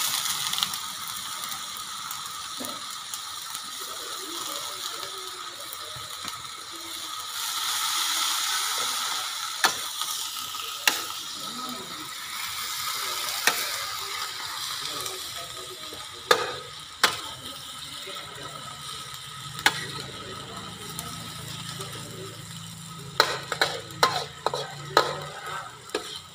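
Stir-frying in a wok: oil palm mushrooms and midin fern sizzling steadily. A metal spatula scrapes and knocks against the wok now and then, with a quick run of knocks near the end.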